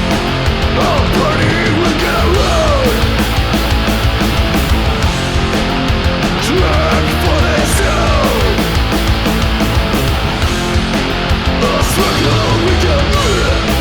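Punk rock band recording playing: distorted electric guitars, bass and drums, with a melodic line sliding up and down in pitch over the top several times.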